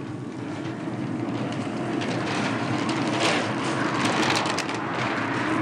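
Wind buffeting the microphone: a steady rushing rumble that slowly grows louder, with a few light clicks and knocks from handling a tray around three to five seconds in.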